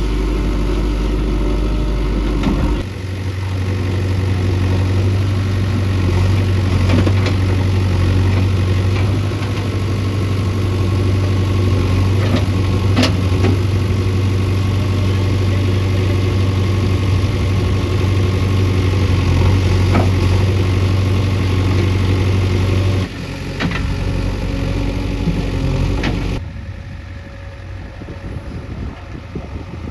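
Heavy diesel engine running, its note stepping up to a higher speed about three seconds in and dropping back near the end, with a few sharp knocks.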